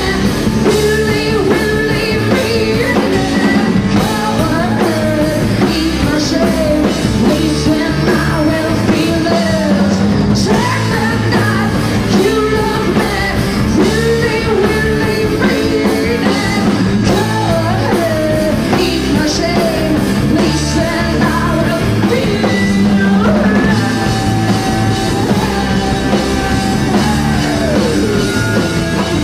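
Live rock band playing, with a woman singing lead over drums, holding long notes and sliding between them.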